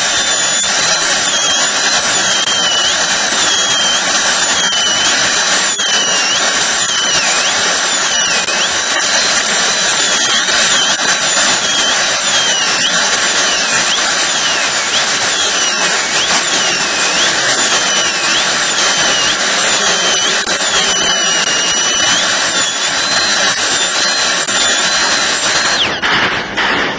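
High-speed dental handpiece whining as its bur cuts an upper central incisor during crown preparation. Its high pitch dips each time the bur bears on the tooth and climbs back again, over and over, with a steady hiss behind it, and stops shortly before the end.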